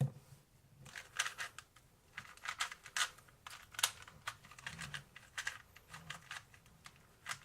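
2x2 Rubik's-type speed cube being turned quickly in a timed solve: plastic layers clicking and clacking in rapid, uneven bursts.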